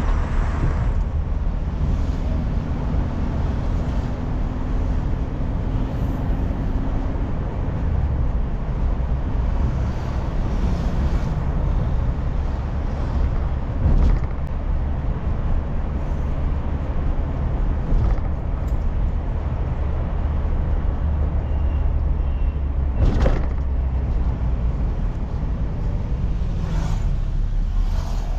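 Car interior driving sound: a steady low engine and road-noise rumble with tyre hiss, broken by a couple of short sharp knocks, one about halfway through and a louder one near the end.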